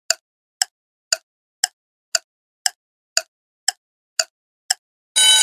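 Quiz countdown-timer sound effect: ten sharp clock-like ticks about two a second, then an electronic alarm ring starts near the end, signalling that the answer time is up.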